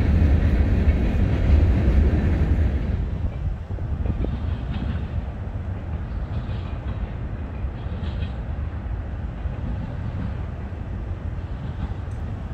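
Wind buffeting the microphone, a low rumbling that eases a few seconds in and then stays steady.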